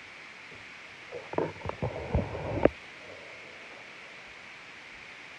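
A quick run of soft thumps and knocks starting about a second in and ending with one sharper knock, over a steady microphone hiss.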